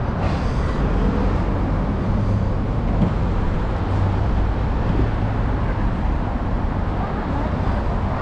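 Steady city road-traffic noise: a continuous low rumble of passing vehicles.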